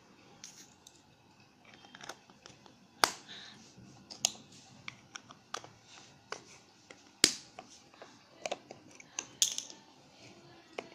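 Small plastic slime tubs and lids clicking and knocking on a hard floor as they are handled and closed, with two louder knocks about three and seven seconds in.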